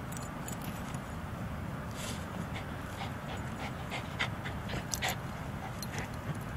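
Two Bichon Frise dogs panting and huffing as they wrestle and roll in play, with a quick run of short breaths through the middle.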